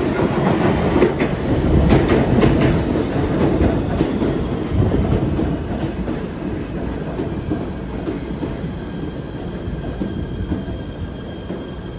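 PATH PA5 rapid-transit train pulling into the station and slowing, its wheels rumbling and clicking over the rail joints. The clicks thin out as it slows, and a faint high squeal comes in near the end.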